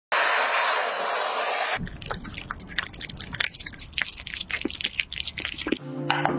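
A kitchen blowtorch flame hisses steadily for nearly two seconds and cuts off, then a cat bites and chews raw salmon with quick wet clicks and crunches. Plucked guitar music comes in near the end.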